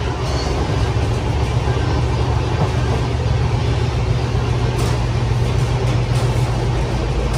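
Passenger train coach running at speed, heard inside the vestibule at the coach end: a loud, steady low hum over even running noise.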